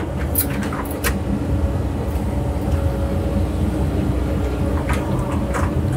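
Cat 308 mini excavator running steadily: a diesel rumble with a steady hydraulic hum, with a few light knocks near the start and again about five seconds in.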